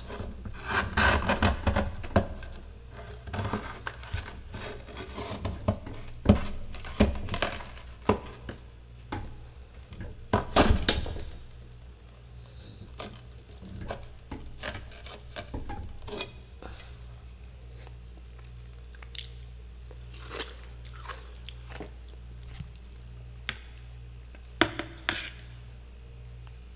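Metal spatula scraping and breaking off packed freezer frost: crisp, crunchy scrapes, dense for the first ten seconds or so, then scattered single crunches. A low steady hum runs underneath.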